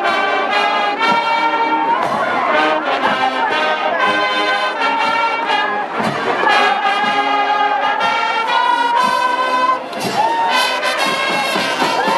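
A high school marching band playing, with trumpets, trombones and other brass carrying the tune over drums. The sound dips briefly about ten seconds in, then a long held note follows.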